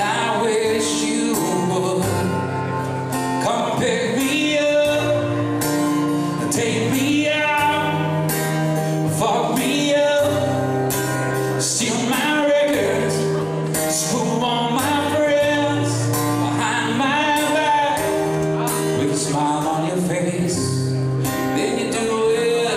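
A man singing a song into a microphone, accompanying himself on acoustic guitar.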